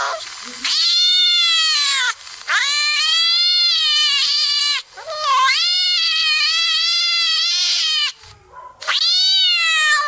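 A cat meowing in four long, drawn-out calls, each rising and then falling in pitch, with short pauses between them.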